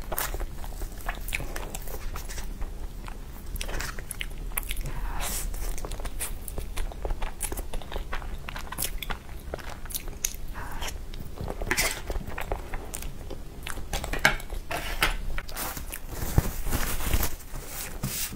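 Close-miked eating of a soft, creamy chocolate dessert from a spoon: irregular bites, chewing and wet mouth clicks, with occasional crunches.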